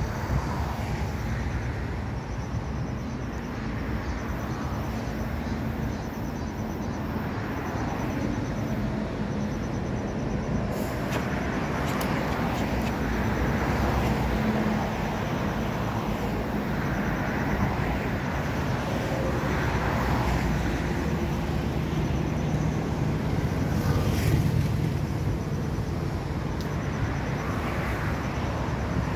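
Steady road traffic noise from passing cars, swelling and fading as vehicles go by.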